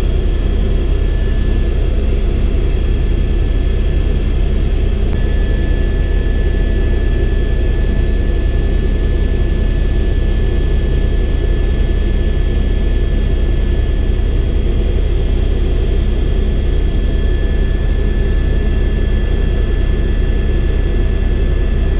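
Helicopter in flight, heard from inside the cabin: a loud, steady low rotor drone under broad noise, with a steady high turbine whine that grows a little stronger about five seconds in.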